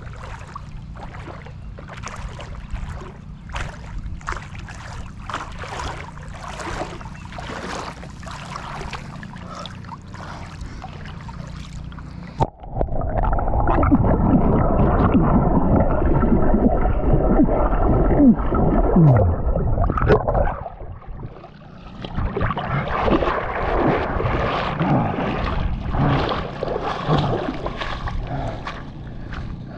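Wading through a shallow pond: water splashing and sloshing around the legs with each step. About twelve seconds in, the microphone goes under the water and the sound turns muffled and gurgling for around eight seconds. Then the splashing steps return as the wader comes out of the water.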